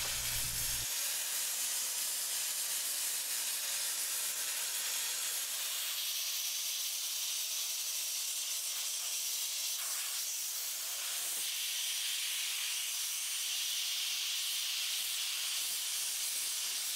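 Abrasive sandblasting nozzle hissing steadily as compressed air and grit strip rust and corrosion from the steel tank wall down to bare metal. The hiss becomes a little brighter about six seconds in.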